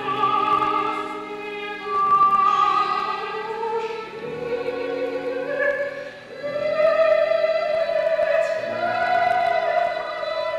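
Mezzo-soprano singing long held notes with vibrato over a chamber orchestra, in a classical cantata; the vocal line rises in pitch about six seconds in.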